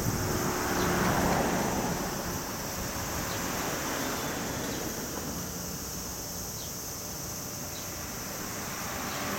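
Steady outdoor rushing noise of wind on the microphone, swelling briefly about a second in.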